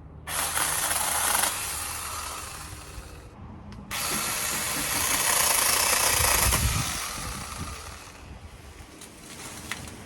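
Cordless mini chainsaw cutting through maple branches, running in two long bursts with a short stop about three and a half seconds in.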